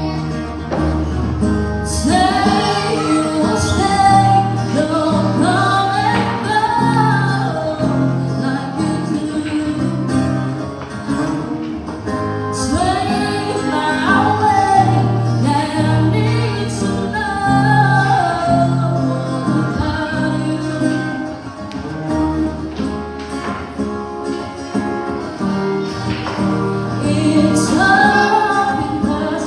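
A woman singing into a microphone with an acoustic guitar accompanying her, a live acoustic duo. The guitar plays alone briefly before her voice comes in about two seconds in.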